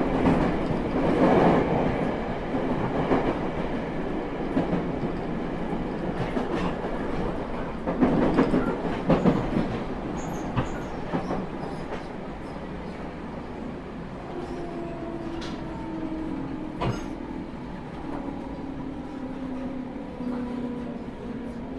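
JR Kyushu 811 series electric multiple unit heard from on board as it slows: running noise with wheel clicks over rail joints, easing off, and in the second half a motor whine that falls slightly in pitch as the train brakes.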